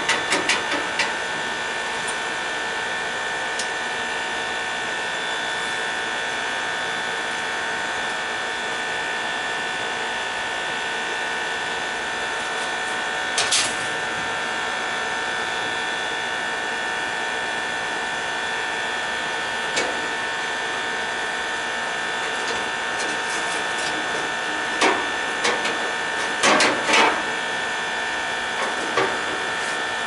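Steady machine hum with a high whine from an unseen running appliance. Over it come a few sharp clicks and knocks of hands handling the furnace's sheet-metal burner compartment: a few at the start, one near the middle and a cluster near the end.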